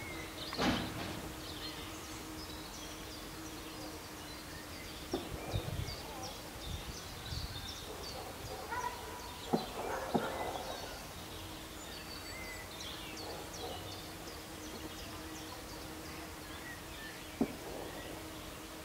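Outdoor ambience of many small birds chirping and singing, with a faint steady low hum and a few short knocks.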